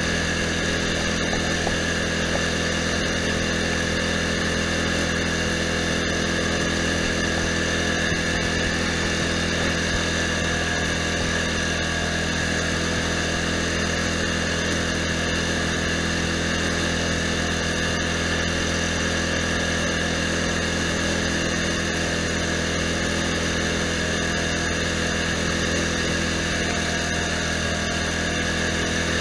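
Lawn tractor's engine running at a steady, unchanging speed while the tractor drives along, a constant hum with no change in pitch or level.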